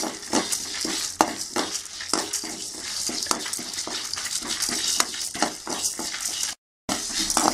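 Spatula stirring and scraping lentils, peppercorns, mustard seeds, dried red chillies and curry leaves as they dry-roast without oil in a metal kadai: a quick rattle of scrapes and clicks over a steady hiss. The sound cuts out for a moment near the end.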